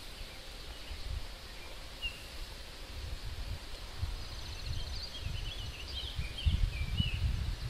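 Wind buffeting the microphone in uneven gusts, with a bird chirping and twittering in short high calls, busiest in the second half.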